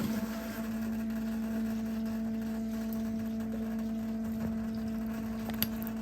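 Electric sump pump running with a steady motor hum, pumping water out of a full sump pit.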